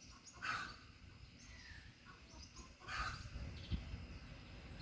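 Birds chirping over a low wind rumble on the microphone, with two brief louder swells of noise about half a second and three seconds in.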